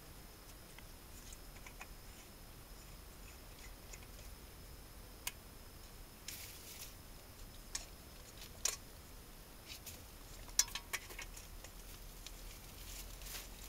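Scattered faint clicks, scrapes and a few sharper knocks from a person crawling through a crawl space under a house, with a brief scraping rustle about six seconds in and the loudest knocks in the second half.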